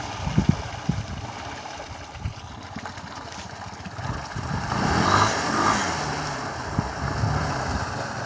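Snorkelled Honda ATV engine running while the quad wades through deep water, with a few sharp knocks about half a second in. Its sound swells about five seconds in as it churns forward, throwing up spray around the wheels.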